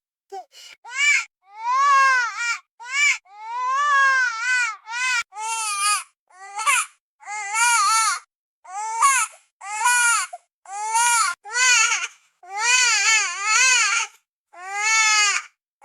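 Baby crying: a steady series of high, arching wails, each half a second to about a second and a half long, broken by short gasps for breath.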